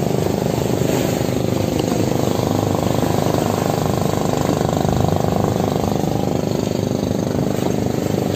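Inboard engine of a motorized outrigger fishing boat running steadily under way, a loud, even drone.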